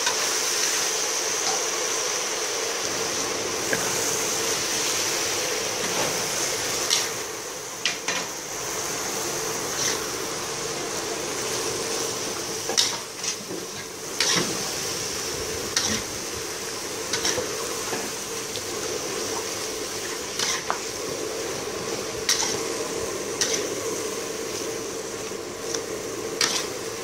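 Stir-frying in an aluminium wok: a metal spatula scrapes and knocks against the pan every second or two over a steady sizzling hiss.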